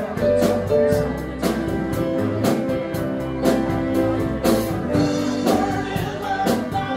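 Live rock band playing a song: a drum beat about two hits a second under guitar and bass, with a singing voice.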